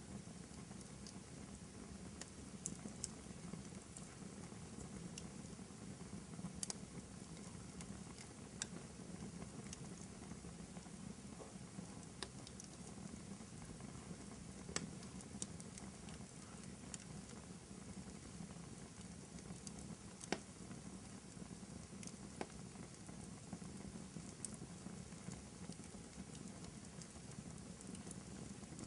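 Wood fire crackling in a fireplace: a steady low hiss and rumble with irregular small crackles and a few sharper pops.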